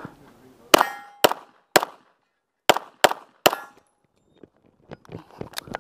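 Handgun fired in quick strings: three shots about half a second apart, then three more after a short pause, then one more near the end. A short metallic ring follows the first shot.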